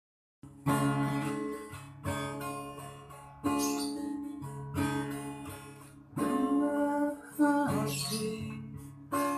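Acoustic guitar playing a song's instrumental intro: a new chord struck about every second and a half, each left to ring and fade.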